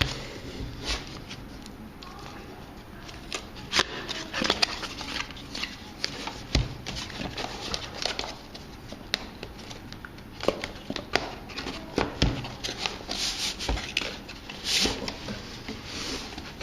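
Cardboard product box being opened and its contents handled by hand: irregular rustling, scraping and clicks of cardboard, paper and plastic packaging, busier after the first few seconds.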